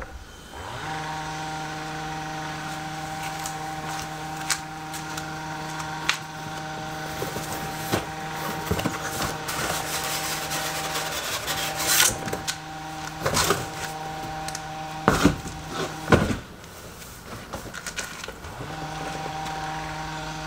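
A steady mechanical hum from machinery running, dropping out twice and starting again, with a few sharp knocks and rustles of a large cardboard box being handled and lifted out of a car boot.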